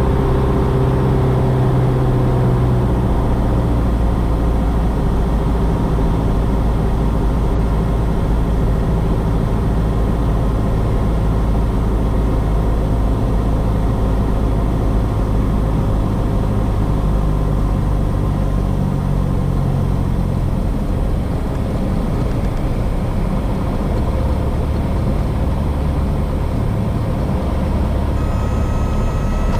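Cessna 172S's four-cylinder Lycoming engine running steadily on final approach, with power easing back about two-thirds of the way through. A short steady high tone sounds near the end.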